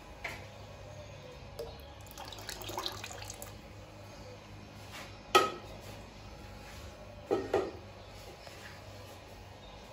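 Kitchen clatter: scattered clinks and knocks of dishes and utensils over a low steady hum, the sharpest about five seconds in and two more close together a couple of seconds later, with some running-water sound.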